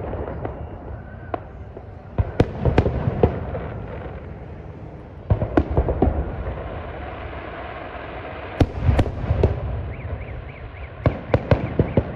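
Fireworks salute: clusters of sharp bangs about every three seconds, each volley followed by a rumbling echo.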